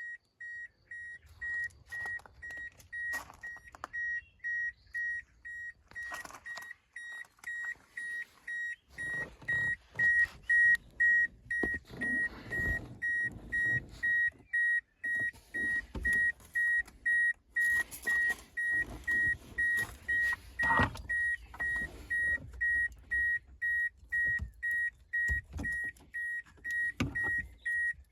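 Toyota Corolla Verso E12's in-car warning beeper sounding a steady high beep about twice a second, over and over, with irregular clicks and knocks alongside it.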